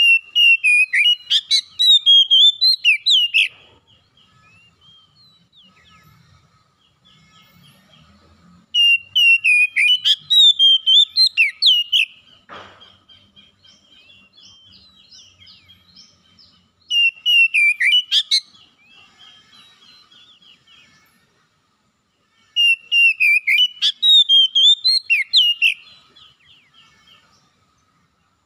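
Male Oriental magpie-robin singing in full voice: four loud phrases of rapid, varied whistled notes, each about three seconds long, with soft twittering in the pauses between them.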